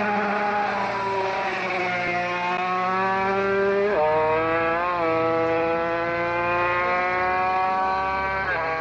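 Competition car engine running hard, its pitch drifting slowly with a sudden dip and rise about four seconds in and again near the end, as with a gear change.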